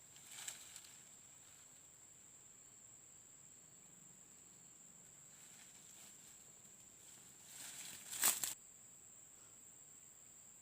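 An insect, cricket-like, sings one steady high-pitched note throughout. Brief rustles break in about half a second in and again near eight seconds, the second the loudest.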